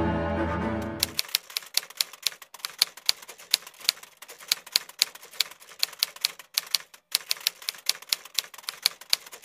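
A string music cue cuts off about a second in. A typewriter follows, its keys striking in a quick, irregular run of clicks with a few brief pauses, as a typing sound effect.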